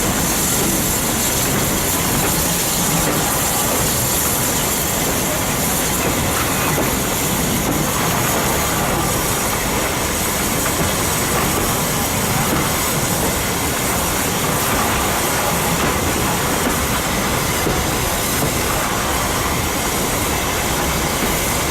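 A steam-hauled train behind Furness Railway No 20 running slowly along the line, its wheels on the rails giving a steady rolling noise with a hiss over it.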